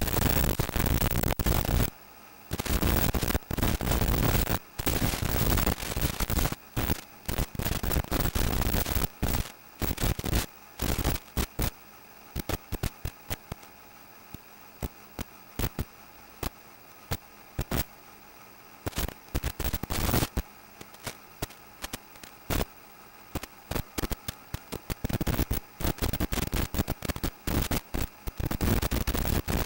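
Analog 5.8 GHz FPV video receiver's audio output hissing with static that cuts in and out in bursts and rapid crackles, with quieter stretches of faint steady hum between them. The static is the sign of the radio link fading, as the picture breaks up at the same moments.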